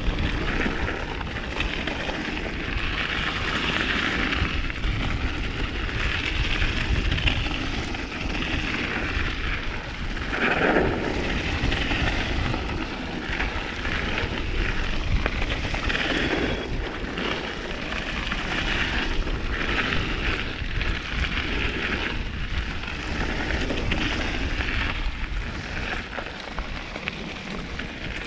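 Mountain bike riding down a frozen trail, heard from a chest-mounted action camera: a steady rush of air on the microphone and the tyres rolling over hard, icy ground, the noise swelling and easing with the terrain.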